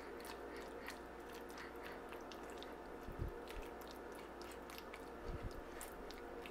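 Cotton swab stirring a microworm culture into cooked oatmeal in a plastic container: faint wet squishing and many small sticky ticks, with two soft low thumps about three and five seconds in.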